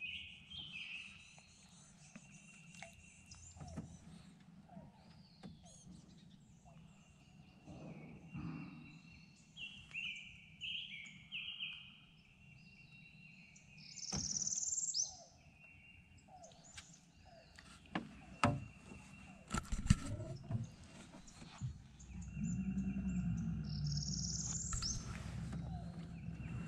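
Birds chirping and singing, short repeated calls throughout, with a few sharp knocks in the middle and a low steady hum that comes in near the end.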